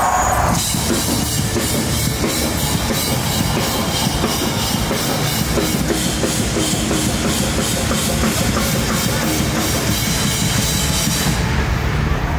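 Heavy rock music played by a full band, a drum kit driving a steady beat with regular cymbal hits; it comes in about half a second in and the cymbals drop away shortly before the end.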